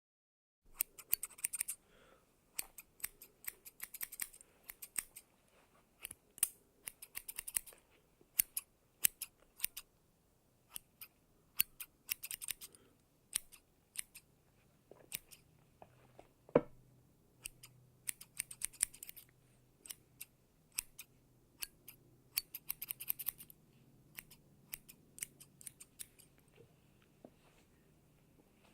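Hair-cutting scissors snipping through hair, in quick runs of several snips broken by single snips and short pauses. One snip about two-thirds of the way through is the loudest.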